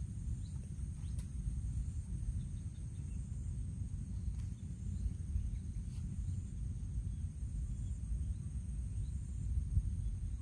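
Steady high-pitched insect chorus, like crickets or cicadas, with a few faint bird chirps, over a constant low rumbling noise.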